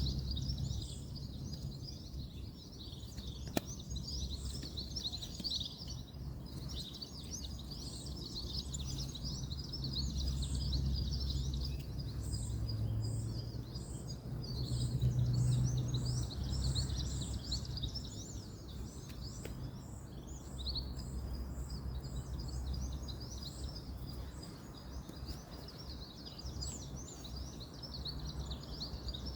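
Many birds chirping together over a steady low rumble of distant road traffic, which swells twice, about a third and halfway through. A run of evenly repeated high call notes sounds through the middle, and there is a single sharp click about three and a half seconds in.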